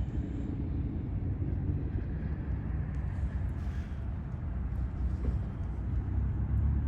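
Steady low rumble of road traffic, swelling near the end.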